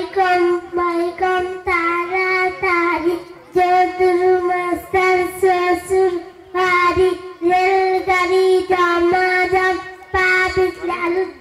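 A young girl sings a Bengali children's rhyme (chhora) into a microphone in a sing-song chant. She holds a nearly level pitch and breaks it into short phrases with brief pauses between them.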